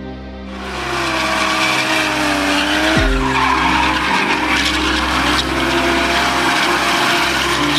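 Car drifting in tight circles: the tyres squeal and skid continuously and the engine revs with its pitch rising and falling. The sound starts loudly about half a second in.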